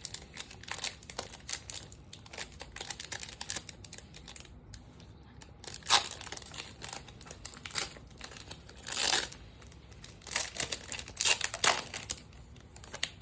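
Foil trading-card pack wrapper being crinkled and torn open, a run of small crackles broken by several louder rips, the longest about nine seconds in.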